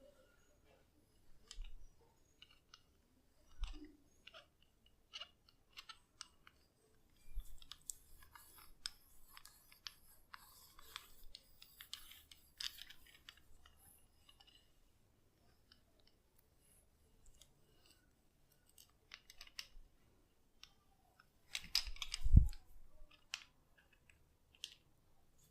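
Close-up head massage: scattered clicks and rustling of hands working over hair and skin, denser for a few seconds in the middle, with a sudden much louder low thump a few seconds before the end.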